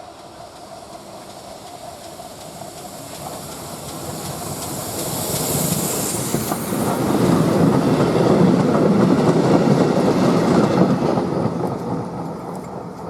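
Train approaching and passing close by, growing steadily louder over several seconds with wheels clicking over the rail joints, then cutting off suddenly.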